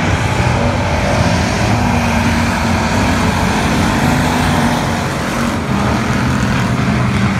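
Hobby stock race car engines running loudly and steadily as several cars circle a dirt oval, a mix of engine tones with no sharp revs.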